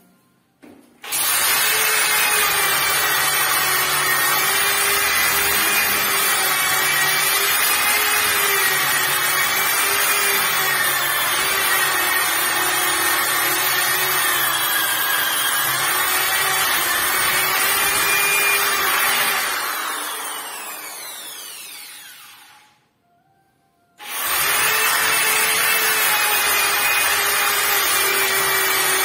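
Round-pad electric sander running against a painted wooden door, sanding it down for repainting; its motor whine wavers slightly as it is pressed and moved over the surface. About nineteen seconds in it is switched off and winds down with a falling whine, then it starts up again about twenty-four seconds in.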